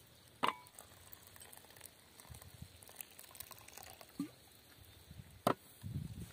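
A drink poured from a stainless steel thermos flask into an enamel mug, with a faint liquid trickle. Two sharp metallic clinks of the flask and mug stand out, one about half a second in and a louder one near the end.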